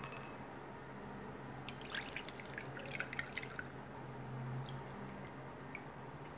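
Ginger juice being poured through a plastic mesh tea strainer into a glass bowl, faint trickling and dripping, busiest between about two and four seconds in, with a few single drips after. A low steady hum sits underneath.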